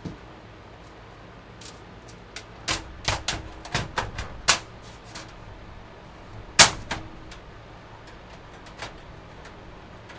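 Hands handling a PC case, making a quick run of sharp clicks and knocks about three seconds in, then one louder knock near seven seconds and a few faint ticks.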